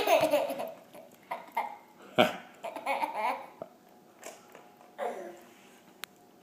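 Laughter and a small child's babbling in short bursts, with one short loud sound about two seconds in.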